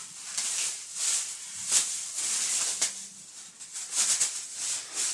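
Irregular rustling from clothes being handled and pulled off as someone gets changed, in uneven bursts a fraction of a second to half a second apart.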